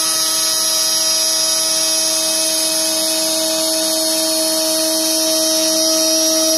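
CNC router spindle on a Carbide 3D machine running at speed, its small bit milling a truss rod channel into a wooden guitar neck blank. It makes a steady high whine with a hiss of cutting.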